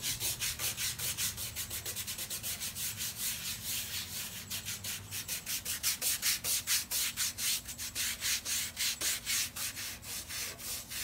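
Toothbrush bristles scrubbing soapy skateboard griptape in quick back-and-forth strokes: a rhythmic scratchy rasp, several strokes a second.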